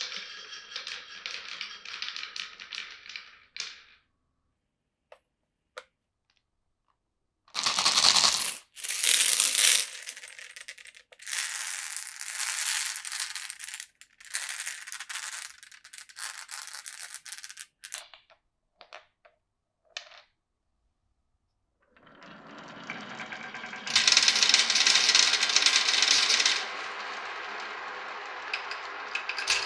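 Marbles rolling and clattering down a marble run of wooden track and clear plastic pipes. It comes in several rattling runs with short pauses and a few single clicks between them, and a long run builds up near the end.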